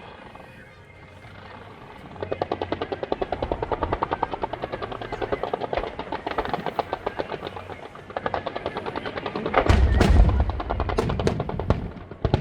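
Fireworks going off in rapid-fire succession, a fast run of sharp bangs at about ten a second. A heavy, deep boom comes about ten seconds in, followed by scattered cracks.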